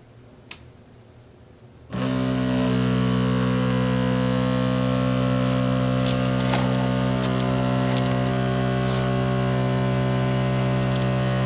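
Vacuum pump of a desoldering iron setup switching on about two seconds in and running with a steady, loud hum. A few faint clicks sound over it.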